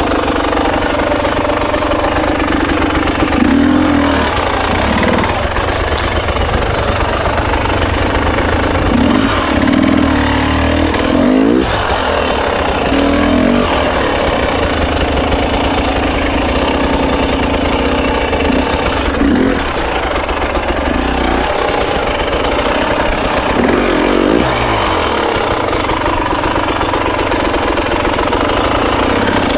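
Husqvarna TE300i two-stroke enduro motorcycle engine running at low revs, with repeated short throttle blips that briefly raise its pitch.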